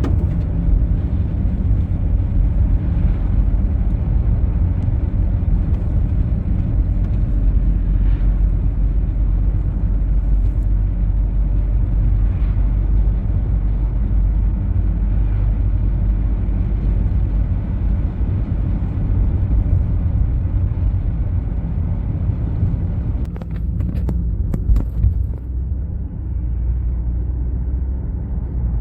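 A car driving, with a steady low rumble of road and engine noise and a few sharp clicks near the end.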